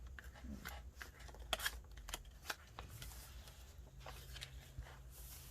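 Faint rustling and soft paper taps, scattered and irregular, as the pages, pockets and tags of a handmade paper journal are turned and handled.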